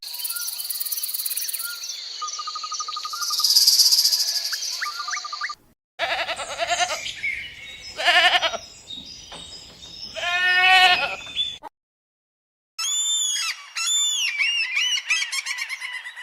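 Animal calls in three separately cut clips, one after another: high repeated calls, then a run of lower calls that rise and fall in pitch, then a rapid series of high chirps.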